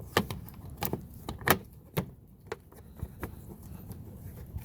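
A series of short, sharp plastic clicks and knocks, about seven in all, the loudest about one and a half seconds in, as a car fog light assembly is handled and pushed back into its grooves.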